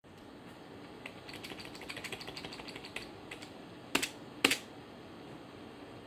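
Computer keyboard keys tapped in a quick run of light clicks, several a second, then two much louder sharp clicks about half a second apart.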